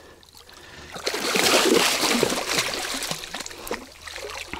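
A large hooked fish thrashing and splashing in the shallow water beside an inflatable boat as it is hauled in. The splashing starts about a second in and is loudest for the next two seconds or so.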